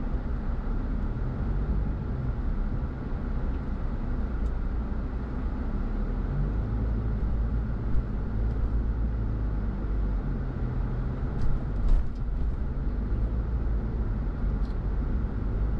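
A car driving: steady engine hum with tyre and road noise, with a few brief knocks about halfway through and again a few seconds later.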